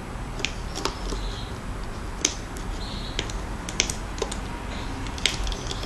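Scattered sharp clicks and taps, irregular and a dozen or so, from a hook and rubber bands working against the plastic pegs of a rubber-band loom as the bands are lifted off the pegs.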